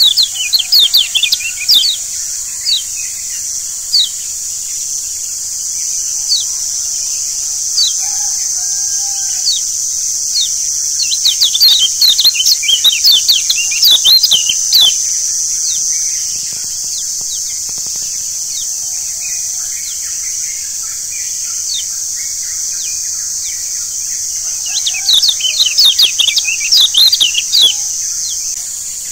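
Kecial kuning (Lombok yellow white-eye, a Zosterops) twittering: quick runs of short, high, down-slurred chirps, in three spells near the start, in the middle and near the end, over a steady high hiss.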